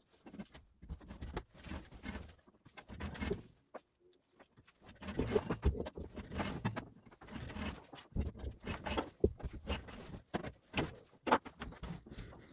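Irregular rustling, scraping and clicking as heavy copper wire is pulled through a homemade wooden screw-blade wire stripper and its PVC insulation is handled with gloved hands.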